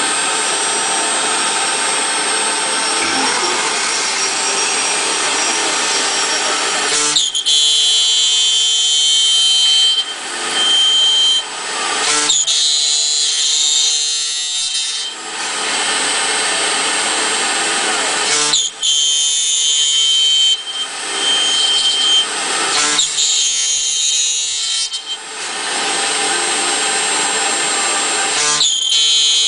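The spindle of a CNC copy router, an HSD 4.5 kW unit, milling holes and grooves in aluminium window and door profiles. It first runs steadily, then cuts in repeated spells of a few seconds each, with a high whine while cutting and short breaks between passes.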